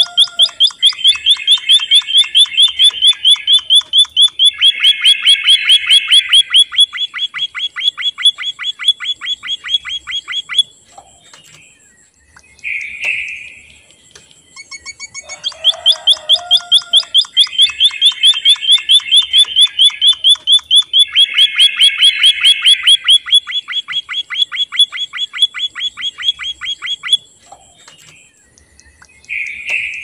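White-headed munia singing: a fast trill of high, clicking notes that runs for about ten seconds, a short pause with a brief call, then the same long trill again.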